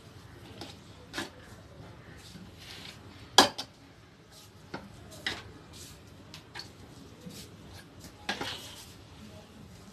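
A steel cup and hands scooping cooked rice between aluminium pots: irregular clinks, knocks and scrapes of metal on metal, the loudest about three and a half seconds in.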